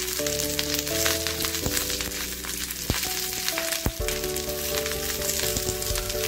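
Curry leaves crackling and sizzling as they roast in a small nonstick pan, stirred with a wooden spatula. Background music with held chords that change every second or so plays underneath.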